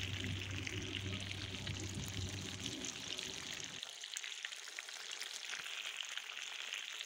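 Fish steaks frying in hot oil in a pan: a steady sizzle with fine crackling. A low background hum stops suddenly about four seconds in.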